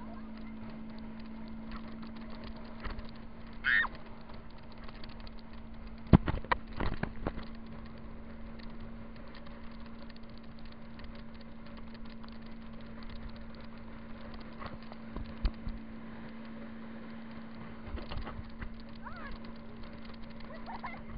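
Muffled rushing and bumping of an inflatable tube being towed over a boat's wake, heard through a camera's sealed case on the tube, under a steady low hum. A short shrill cry about four seconds in, and a cluster of sharp knocks around six to seven seconds in.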